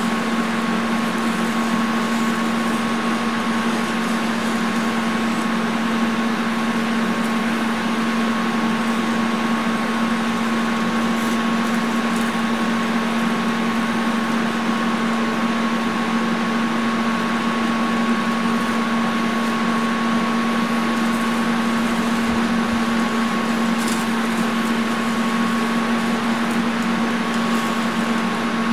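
TIG welding arc from a Lincoln Square Wave TIG 200 welder, buzzing steadily with a hiss as filler is laid into the joint. The arc runs without a break.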